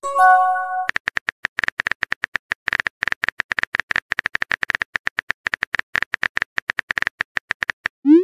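Rapid, steady phone keyboard typing clicks as a text message is typed out. At the very start a short chime of several steady tones sounds as a message is sent, and just at the end a quick rising swoosh marks the next message being sent.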